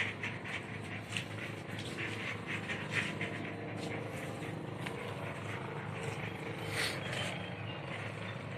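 A motor running steadily, with scattered clicks and knocks over it and one louder knock near the end.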